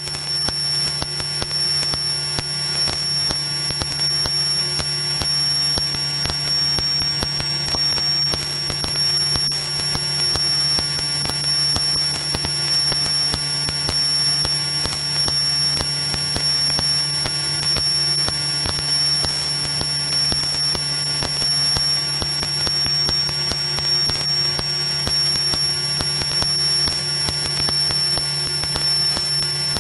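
Piper Cherokee's engine and propeller droning steadily in flight, with a low tone that wavers slowly and a steady high-pitched whine over it.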